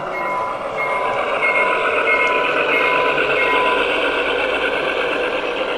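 Electronic beeping at an even pace, about three beeps every two seconds, of the kind a reversing alarm makes; it stops a little over halfway through, over a steady hubbub.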